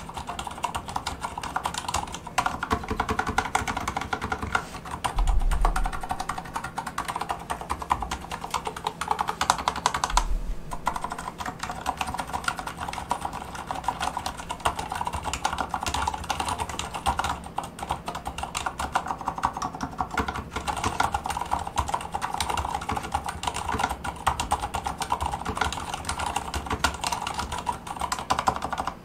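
Fast, continuous typing on a Durgod Fusion mechanical keyboard with Cherry MX Silent Red switches and double-shot keycaps: a dense run of keystrokes, with a short pause about ten seconds in.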